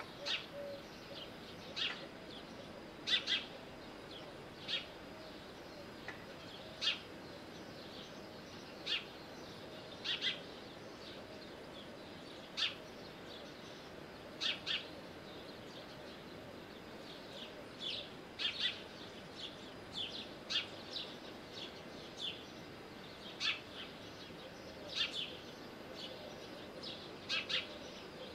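Short, sharp bird chirps repeating irregularly, roughly one every second or two, over a faint steady background hum.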